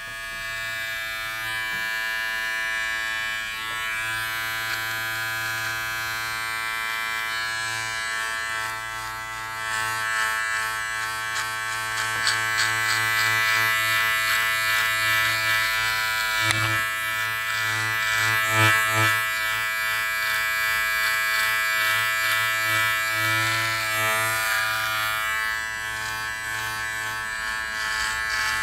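Powertec TR-758 cordless beard and neck trimmer running with a steady buzz as it is passed over the face and neck. It grows louder and rougher from about ten seconds in, as the blades bite into the beard.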